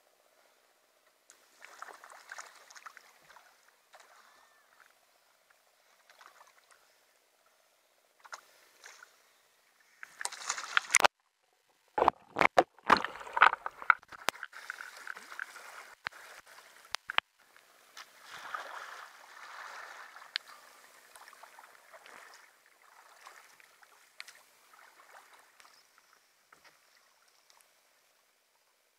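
Sea kayak rolling: soft paddle splashes, then a loud rush of water as the kayak goes over, a brief dropout, and a run of loud splashes and knocks as the paddler sweeps and rolls back up. After that, water sloshes and runs off the boat and paddler, fading away.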